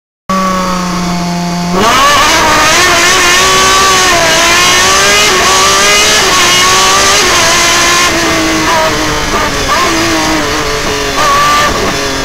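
Breda BMW racing prototype's engine heard from on board. It holds a steady note for a moment, then about two seconds in it turns loud under hard acceleration, its pitch rising and falling through the gear changes as the car climbs the hill.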